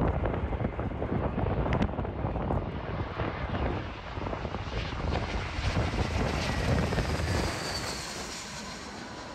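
Jet airliner on final approach passing over, its engines a loud rumble with a faint high whine that sinks slightly in pitch, mixed with wind buffeting the microphone. The noise eases off near the end.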